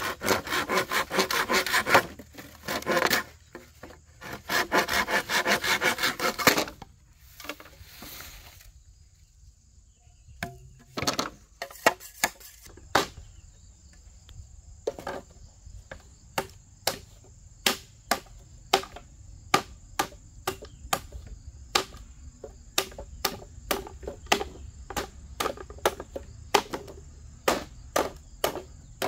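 Rough rasping strokes in three quick bursts over the first six or so seconds, then a steady run of sharp knocks, roughly two a second, through the rest.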